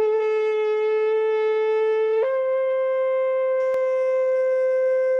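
Shofar blown in one long, unbroken blast, its pitch stepping up slightly about two seconds in.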